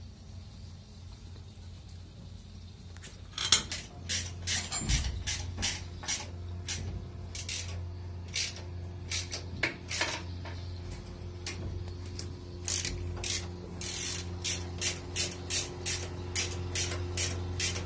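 Hand ratchet wrench clicking in a quick run of strokes, about two to three a second, as bolts on the crane engine's cover are tightened; the clicking starts a few seconds in. A steady low hum runs underneath.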